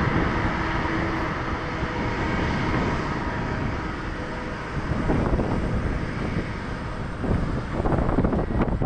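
Boeing 787-9 airliner's Rolls-Royce Trent 1000 jet engines, a steady roar with a faint high whine that fades early and then slowly quietens. From about halfway through, gusts of wind buffet the microphone.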